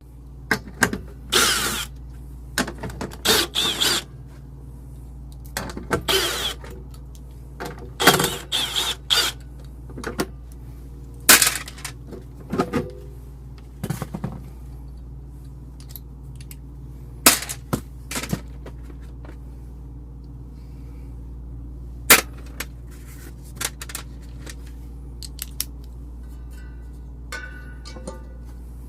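Sheet-metal cover being taken off a walk-in freezer's evaporator coil: irregular metal clanks, knocks and rattles of panel and tools over a steady low hum.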